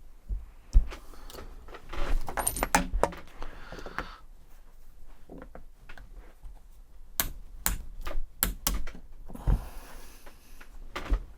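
Metal tools clinking and a scattered series of sharp metallic taps, a hammer on a pin punch driving out the pin that joins the two halves of a Remington 581 rifle bolt. The taps come irregularly, the loudest about a second in, with a cluster of quicker taps in the second half.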